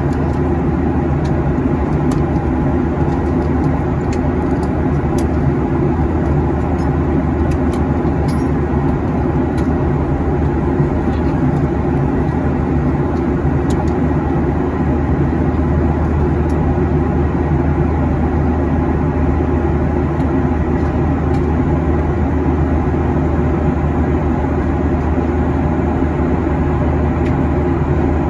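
Steady, low drone of a Boeing 737-800 in flight, its CFM56 engines and rushing air, heard inside the passenger cabin.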